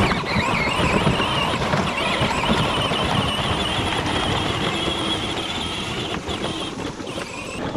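Power Wheels John Deere Gator ride-on toy's electric drive motors and gearboxes whining as it drives through mud, the whine wavering in pitch as the load changes, over a steady rough noise from the wheels.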